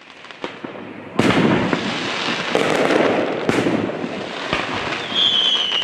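Fireworks display: crackling pops, a loud bang about a second in and more bursts a second or two later, then near the end a whistling firework, its whistle falling in pitch.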